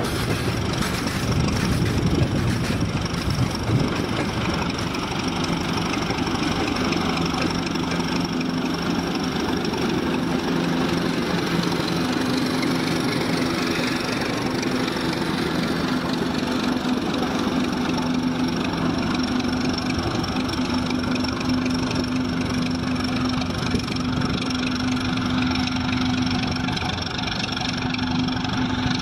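Freight wagons rolling past with wheel knocks, then the ChME3 pusher locomotive's six-cylinder diesel engine running steadily under load as it passes and moves away, pushing the train.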